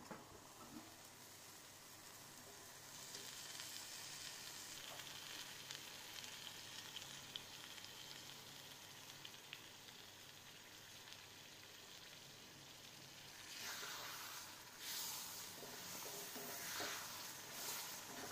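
Thick tomato thokku paste sizzling in oil in a pan, a steady hiss that grows louder and choppier over the last few seconds.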